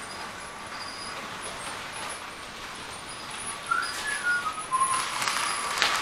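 A short, falling whistle about four seconds in, over a faint steady hiss, followed by a few light clicks and rustles.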